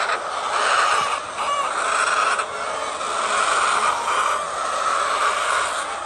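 A large flock of white laying hens clucking and calling together, a steady dense chatter with no pauses.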